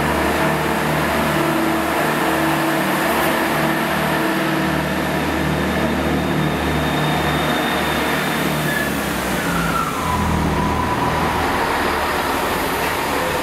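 Class 166 Turbo diesel multiple unit running past close by, its underfloor diesel engines droning steadily. About nine seconds in, a whining tone drops in pitch and then holds lower.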